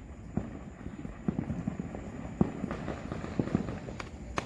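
Consumer fireworks going off around a neighbourhood: an irregular run of pops and bangs, a few each second, over a low rumble.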